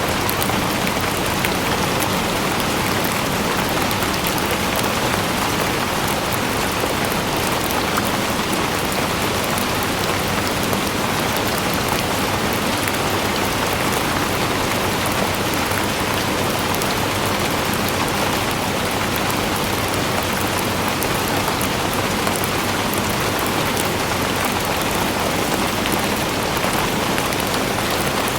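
Steady, even rain falling, with a dense patter of drops hitting a surface.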